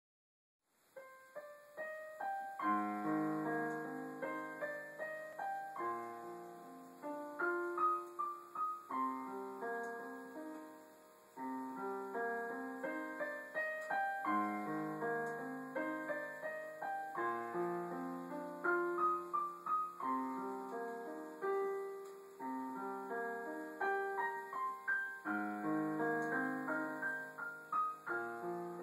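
Digital piano playing a flowing, arpeggiated melody over low bass notes that recur every few seconds, starting about a second in.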